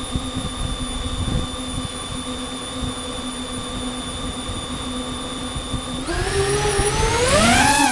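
DJI Avata 2 drone's propeller motors spinning at idle with a steady whine, then speeding up about six seconds in so the whine climbs in pitch and wavers.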